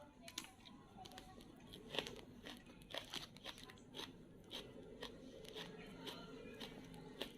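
A person eating close to the microphone: chewing and crunching food, with short crisp clicks about twice a second.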